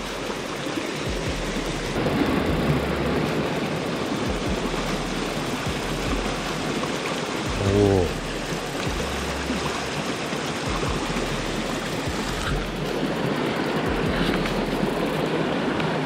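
Mountain stream rushing over boulders and small cascades: a steady noise of running water.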